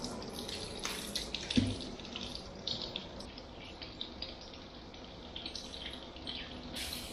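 Water trickling and running in a salon shampoo basin, with scattered light clicks and splashes and a dull knock about one and a half seconds in.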